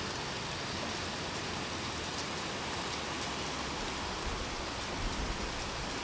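Steady heavy rain from a rainstorm, falling and splashing on surfaces, with scattered individual drop ticks. A low rumble swells in the final couple of seconds.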